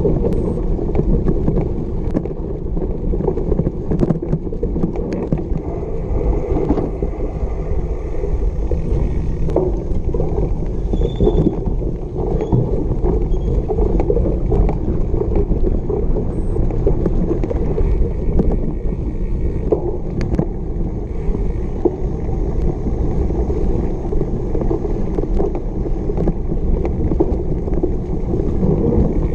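Cyclocross bike riding fast over bumpy grass: a steady rumble and rattle from the tyres and frame, with scattered sharp clicks.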